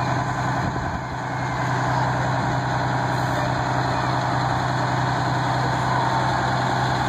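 Ford L-series fire tanker truck's engine running at low speed as the truck rolls slowly past, a steady low hum.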